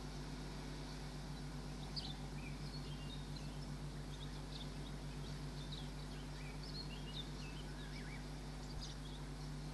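Many short, high bird chirps scattered over several seconds, starting about two seconds in, over a steady low hum.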